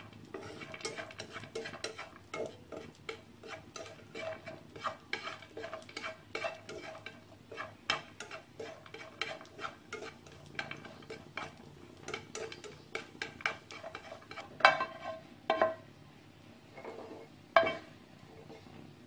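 Spatula stirring dried shrimp in a metal wok: rapid light taps and scrapes against the pan, about two to three a second, each with a short metallic ring. Near the end a few louder knocks as the pan is tilted and scraped.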